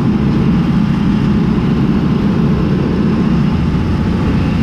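John Deere 3350 tractor's diesel engine running steadily under load, heard from inside the cab, together with the trailed Zmaj 222 corn picker working as it harvests corn.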